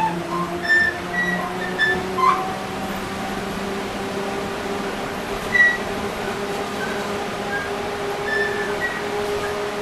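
Inside a VMZ-6215 articulated trolleybus under way: the electric drive whines steadily, rising a little in pitch over the first few seconds and then holding. Short high creaks and squeaks come several times from the articulation joint.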